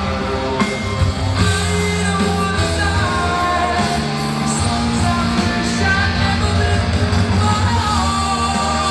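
Rock music with singing, guitar and a steady bass line.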